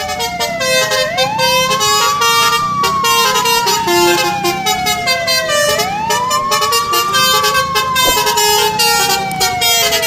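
Emergency vehicle siren wailing: each cycle rises quickly, then falls slowly, repeating about every four and a half seconds. Background music with a steady beat runs underneath.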